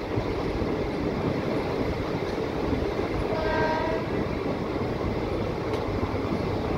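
MEMU passenger train running, a steady rumble of wheels and coaches heard from on board. A train horn sounds once, briefly, a little past the middle.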